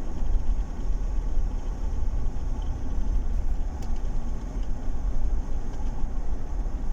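2012 Chevrolet Tahoe's V8 running on the road, a steady low rumble. The engine has a misfire on cylinder 5, later traced to a cracked spark plug insulator.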